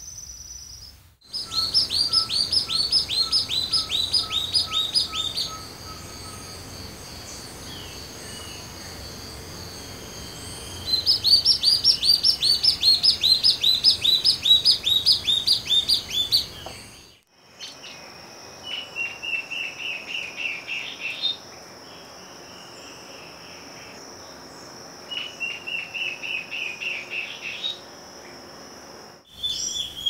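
Field recordings of Amazonian understory antbirds singing, one recording cut straight after another. First comes a long, rapid series of high, thin down-slurred notes, given twice. Then comes a shorter series of lower notes, also given twice, with a steady high insect drone behind.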